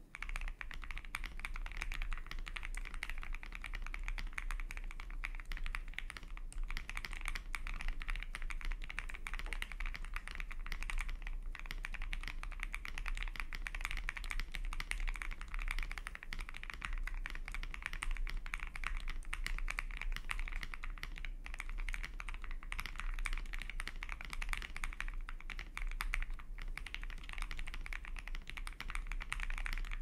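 Continuous fast typing on an Akko ACR Pro Alice Plus keyboard fitted with lubed, filmed Gazzew Boba Linear Thock switches, with an aluminium plate and tempest tape mod: a dense, unbroken run of keystroke clacks.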